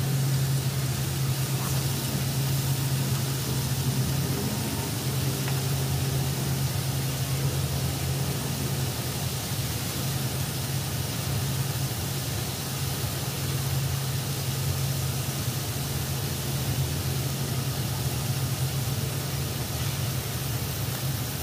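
Pork belly frying in oil in a wok, a steady sizzling hiss over the constant low hum of the induction cooktop's cooling fan.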